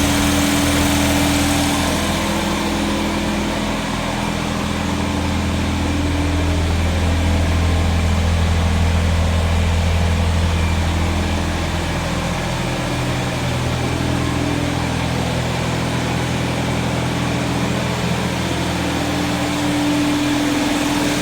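1979 Datsun 210's four-cylinder engine idling steadily with the air cleaner off, its pitch shifting slightly a few times. The owner says it still has a misfire despite starting and idling fine.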